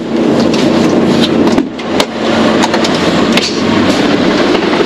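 Heavy truck's diesel engine running, heard inside the cab, with frequent rattles and clanks over the steady drone.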